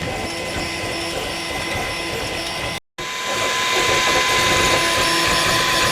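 Toybox 3D printer running mid-print: a steady machine whir with fixed whining tones from its motors and fan. The sound cuts out completely for a moment about three seconds in, then resumes a little louder.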